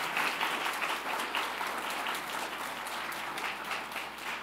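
Audience applause, many hands clapping, slowly dying down.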